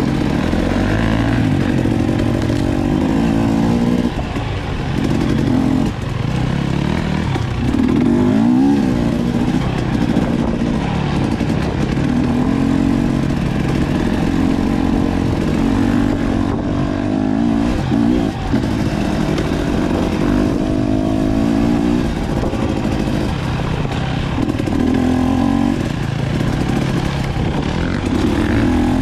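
Dirt bike engine running hard, revving up and down repeatedly as it rides through the trail, with the pitch rising and falling every few seconds.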